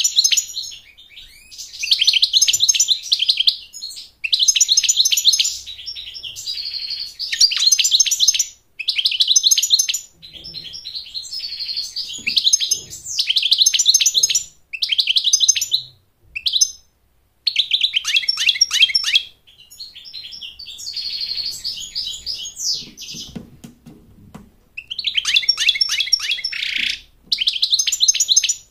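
European goldfinch singing: rapid, liquid twittering in phrases of one to two seconds separated by short pauses, with a few drawn-out buzzy notes mixed in.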